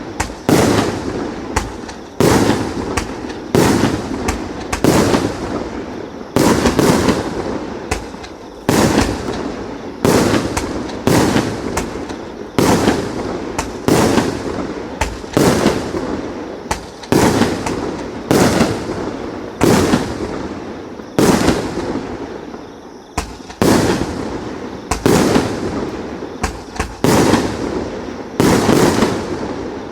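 A 100-shot, 1-inch-calibre fireworks cake firing shot after shot, about one to two loud bangs a second, each dying away over about a second.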